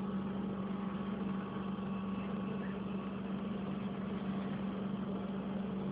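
Steady low hum over a faint even hiss.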